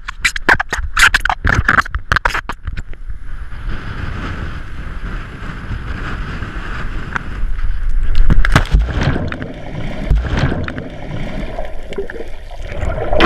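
Knocks and wind on a hand-held action camera, then a loud plunge into the sea about eight seconds in, followed by muffled underwater bubbling and gurgling.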